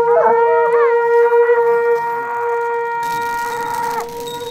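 Horagai conch-shell trumpets blown by yamabushi in one long, steady, low blast, with a second, wavering note over it in the first second. The blast drops in loudness about halfway through and stops just before the end. In the saito goma rite, the horagai is sounded as the cedar pyre is lit.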